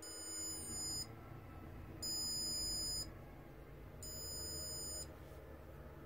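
Arduino buzzer sounding three high-pitched beeps, each about a second long with a second's pause between them, signalling that the model washing machine's cycle is complete.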